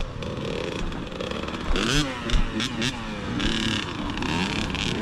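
Dirt bike engine revving up and down repeatedly, with a couple of sharp knocks about two seconds in.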